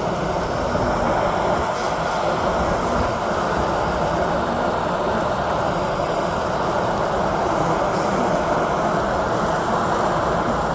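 Steady, loud buzzing of a mass of honey bees crowding around their nest entrance in a tree.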